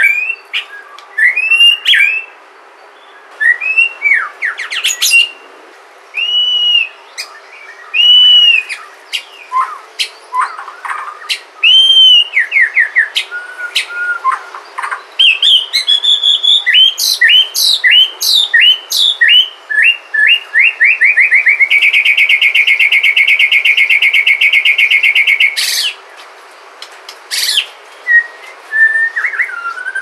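White-rumped shama (Sumatran murai batu) singing: a varied run of loud, clear whistles, arched and sweeping notes and quick rising phrases, with a fast, even trill held for about four seconds in the second half.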